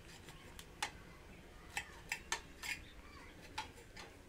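Kitchen knife dicing a green bell pepper on a hard cutting board: sharp, irregular clicks as the blade strikes the board, about nine in a few seconds.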